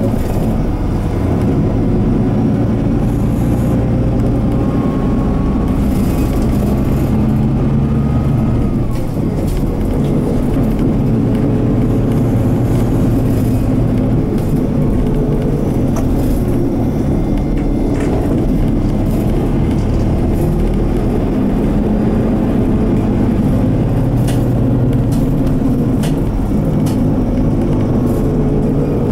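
Mitsubishi Fuso Aero Midi MK bus's 6M61 inline-six diesel running under way, heard from inside the cabin. Its pitch climbs for a few seconds and falls back about nine seconds in, with a brief dip in level, then the engine runs on steadily.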